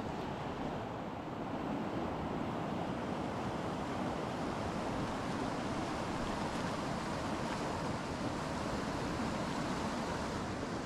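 Fast mountain river rushing over a rocky whitewater riffle, running a little high: a steady, even rush of water.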